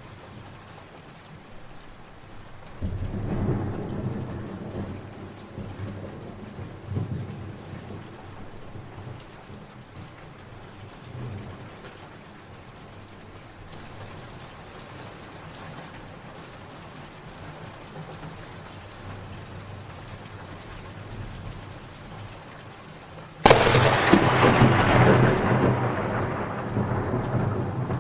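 Steady rain falling, with a low roll of thunder a few seconds in. Near the end comes a sudden loud thunderclap that rumbles away slowly.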